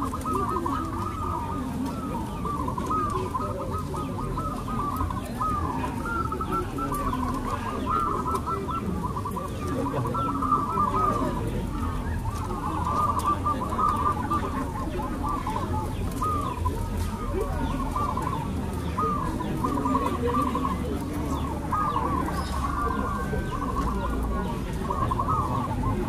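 Chorus of many caged zebra doves (perkutut) cooing at once, their short clipped coos overlapping without a break, over a low background rumble.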